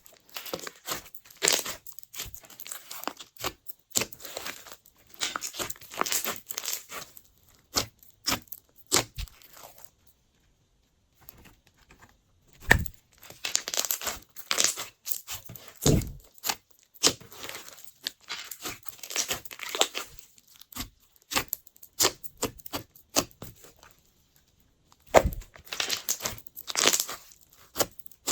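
Hands squishing, stretching and folding glossy slime: irregular sticky crackles and pops, with two brief pauses.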